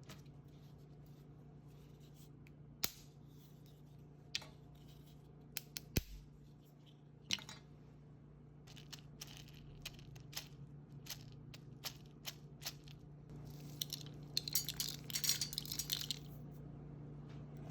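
Simmer pot ingredients being dropped and handled in a pot: scattered single clinks and taps, then a quick run of rattling clinks about two seconds long near the end. A steady low hum runs underneath.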